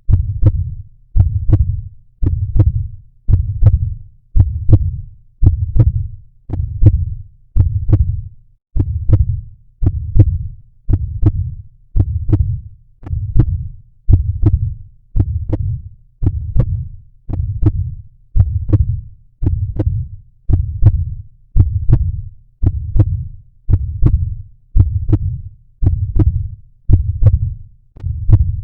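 Recorded human heartbeat, a steady run of low thuds at a resting pace of about seventy beats a minute.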